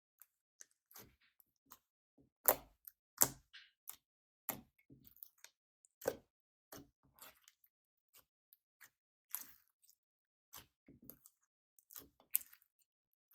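Slime with makeup mixed into it being squeezed and pressed by hand: scattered short wet squishes, crackles and pops with brief silences between, the loudest about two and a half seconds in, a second later, and near the end.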